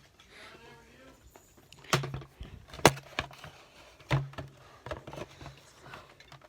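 Hard plastic clicks and knocks from a Shark vacuum's bagless dust canister being handled, with three loud knocks near the middle and a few smaller clicks; the vacuum motor is not running.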